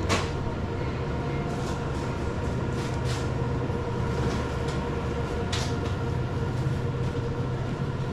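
Steady electrical hum of a convenience store's refrigerated display cases and ventilation, with a few light clicks and taps, the sharpest right at the start and another about five and a half seconds in.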